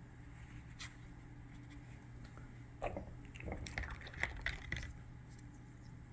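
Handling noise as cut geode pieces are picked up and turned over: a few light knocks and rustles, most of them in the middle, over a steady low hum.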